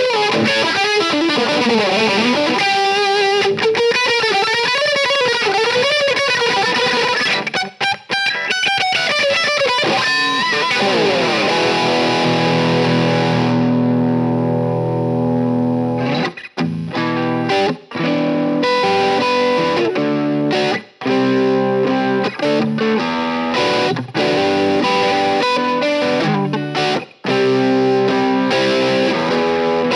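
Epiphone Flying V electric guitar through a Marshall SC20H amp, boosted by a Xotic BB Preamp, playing a distorted lead tone. It plays a lead line with string bends and vibrato, slides down at about eleven seconds, and holds a sustained chord. Then come choppy chords broken by short stops.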